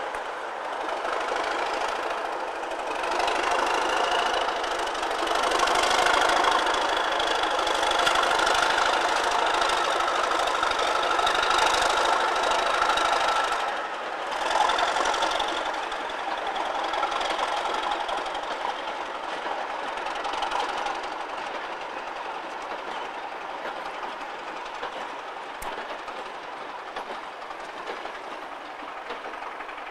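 Class 37 diesel locomotive, with its English Electric V12 engine, running under power as it hauls a freight train past, with a rising high whine early on. It is loudest in the middle, then fades steadily as the loaded wagons roll away.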